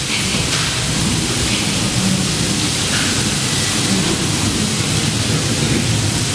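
A steady, loud hiss of noise like static, even across all pitches and without any clear beat or tone.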